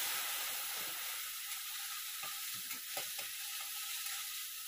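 Chopped onion, ginger, garlic and green chilli sizzling in oil in a karahi just after a little water has been added to soften them. The hiss is strongest in the first second, and a silicone spatula stirs the pan in a few soft strokes around the middle.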